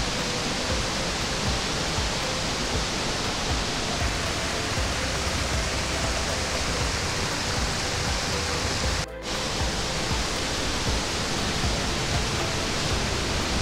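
Waterfall and cascading stream: a steady, loud rush of falling water, with a brief dip about nine seconds in. Faint music lies underneath.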